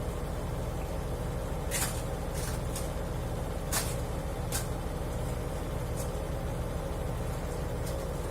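Midea washer-dryer in its spin cycle: a steady low rumble and hum, with short, high, hissing or scraping noises at irregular intervals, loudest about two and four seconds in. The owner reports this noise began after eight months of use, and an authorized technician called it normal.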